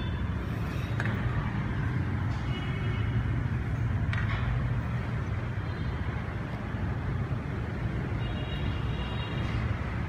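Daikin wall-mounted mini split air conditioner's indoor unit running after startup: a steady low blowing hum. A faint high-pitched whine comes and goes, and there are a couple of faint clicks.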